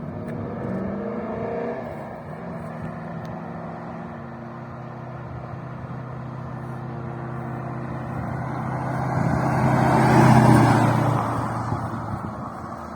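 1966 Mustang's Ford 331 stroker V8 running through its exhaust, with a short rise in revs near the start. It then runs steadily and swells louder around ten seconds in before fading again, held to moderate revs because the engine is still being broken in.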